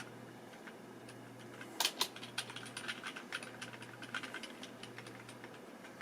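Computer keyboard keys tapped in an irregular run of light clicks, with a louder double clack about two seconds in, over a low steady hum.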